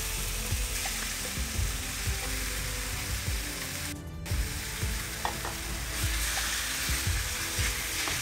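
Marinated chicken pieces sizzling as they are tipped from a bowl into a hot frying pan, with scattered soft knocks of pieces landing. Near the end a wooden spatula moves them about in the pan.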